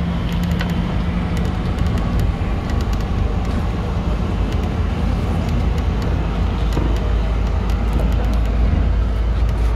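City bus driving along: steady engine hum and road noise, with small rattles and clicks throughout.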